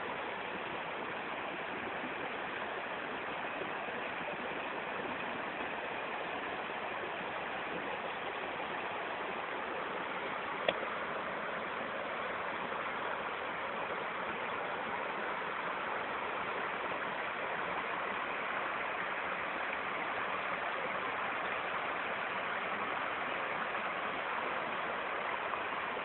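Steady rushing of a rainforest stream's flowing water, with a single brief click about ten seconds in.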